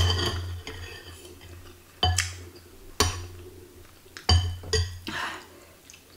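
Metal spoons clinking against a glass bowl of broth as it is stirred and scooped: a handful of sharp, ringing clinks, each about a second or less apart.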